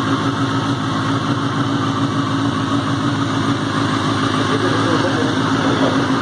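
Benelli TNT 600i's 600 cc inline-four engine idling steadily.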